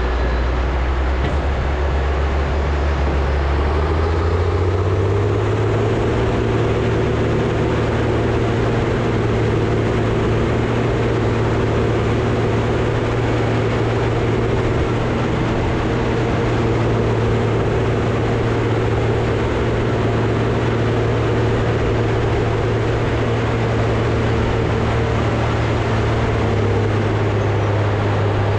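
Caterpillar 637C scraper's diesel engine running hard and steadily. It revs up about four seconds in, holds there, and eases off slightly near the end.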